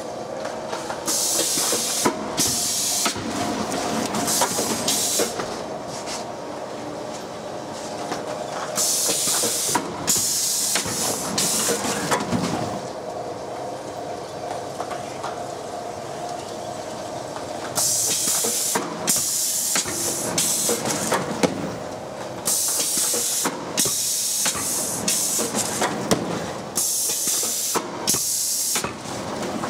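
Cigarette film-wrapping machine running: a steady mechanical hum with a clatter of small clicks from its rollers and feeders, broken by repeated short bursts of hiss that come in clusters.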